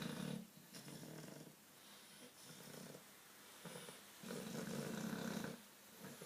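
English bulldog snoring in its sleep: one snore ending just after the start and another long one from about four seconds in, with quieter snoring breaths between.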